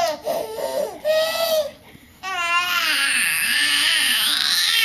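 Baby making high-pitched vocal noises: a few short cooing notes, then one long squeal that starts about two seconds in.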